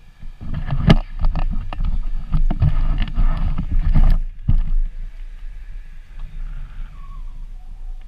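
Handling noise from a body-worn action camera being turned around: rubbing and knocking on the microphone for about three and a half seconds, then a steadier low wind rumble.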